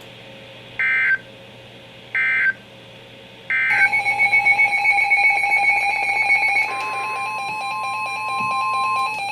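Emergency Alert System signalling: three short bursts of warbling digital data tones about a second and a half apart, then a long steady alert tone. A second, slightly higher steady tone joins it about two-thirds of the way in and stops just before the end. Together they mark the switch to a new weather warning.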